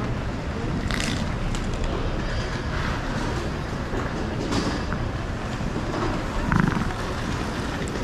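Railway station concourse ambience: a steady hubbub of a busy, echoing hall, with a few short sharp clicks and knocks.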